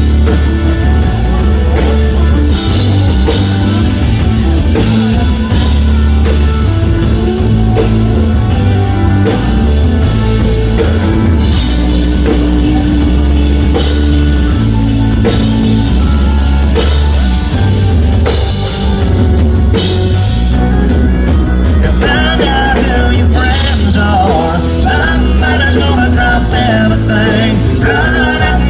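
Live country band playing an instrumental solo break over drum kit and bass, with a steady beat and a lead melody line.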